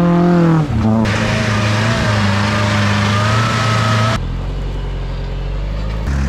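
Off-road 4x4 engines revving and labouring as they climb, in a string of short clips, so the engine note changes abruptly several times. In the middle, about a second in to about four seconds in, a loud rushing noise covers the engine.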